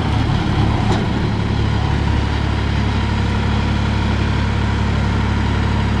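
Engine of a Wolwa 3-ton ride-on tandem road roller running steadily as the roller drives, with a low, even hum. A short click about a second in.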